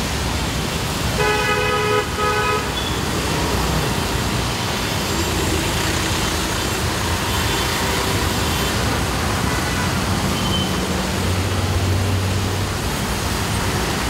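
Traffic driving through a flooded underpass: a steady wash of engine noise and tyres hissing and splashing through standing water. A vehicle horn honks in a few short toots about a second in, another horn sounds more faintly later on, and a low engine hum swells near the end as an auto rickshaw passes close.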